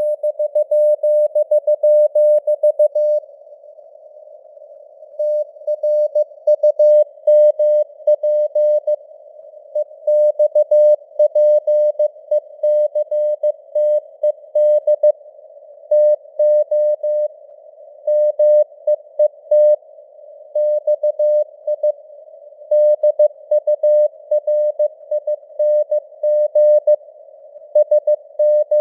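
Morse code (CW) at 15 words per minute: a single steady-pitched tone keyed on and off in dots and dashes, with short pauses between words. Simulated radio static hisses faintly around the tone, and the signal strength fades up and down a little (QSB).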